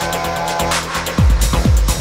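Electronic dance music: held synth chords build to a rising sweep, then a heavy kick drum and deep bass drop in just over a second in and carry on as a steady beat.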